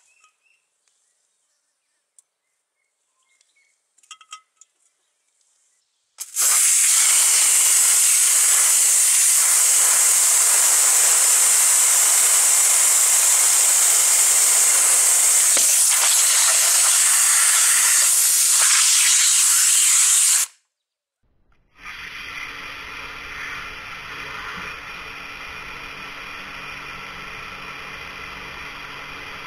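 High-pressure washer jet blasting an aluminium Coca-Cola can: after a few nearly silent seconds with faint clicks, a loud steady hiss of spray runs for about fourteen seconds, stops suddenly, and after a short gap a quieter steady hiss of the jet returns.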